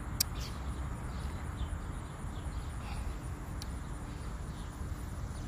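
Outdoor ambience: faint, short high bird chirps repeating over a steady low rumble, with a sharp click just after the start and a softer one about three and a half seconds in.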